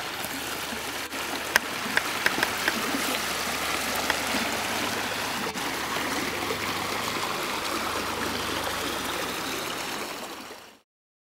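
Water rushing and splashing along the hull of a Westfjord 28 boat moving under OZecoDrive electric propulsion, with no motor noise standing out. A few sharp ticks come about two seconds in, and the sound fades in and cuts off near the end.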